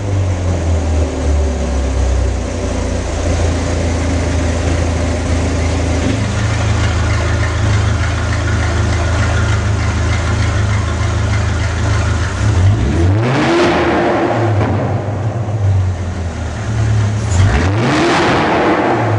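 Ferrari 458 Speciale's naturally aspirated V8 through an Fi valvetronic exhaust with the valves open, running steadily and then revved twice to about 5000 rpm, each rev rising and falling quickly, about four seconds apart.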